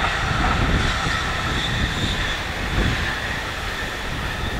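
E531 series electric commuter train running at speed along the track and moving away. Its steady rushing running noise slowly fades.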